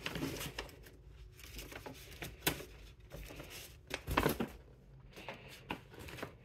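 Paper gift bag rustling and crinkling as it is handled and moved about, with scattered light clicks and a soft thump about four seconds in.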